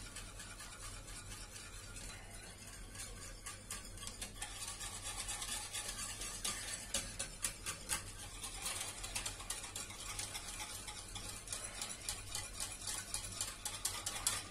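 Metal wire whisk stirring powdered tomato into hot water in a bowl, its wires ticking and scraping against the bowl in quick, continuous strokes that get busier after a few seconds. This is the mixing stage of rehydrating the dehydrated tomato powder into a thick tomato sauce.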